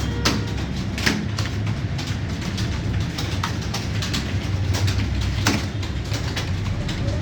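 Several computer keyboards being typed on at once, an irregular clatter of key clicks over a steady low hum.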